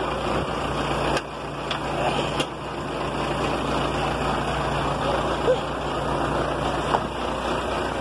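Heavy truck's diesel engine idling steadily, with a few light knocks.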